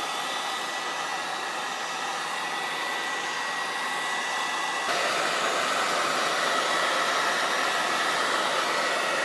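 Heat gun blowing hot air at its lowest setting, a steady rush of air with a thin high whine, getting a little louder about halfway through. It is warming the adhesive along the edge of a tablet's glass so the glass can be lifted.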